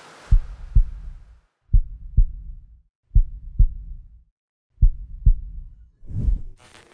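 Heartbeat sound effect: four slow lub-dub double thumps, deep and evenly spaced about one and a half seconds apart. A brief swelling noise comes near the end.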